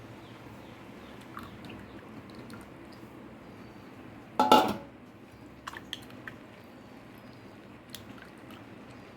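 Metal kitchen utensils handled: one loud, short clatter about four and a half seconds in, followed by a few light clicks.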